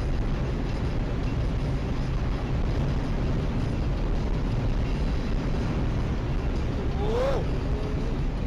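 Steady road and engine noise of a moving car heard from inside the cabin on a dash cam, with a short voice-like sound sliding up and down near the end.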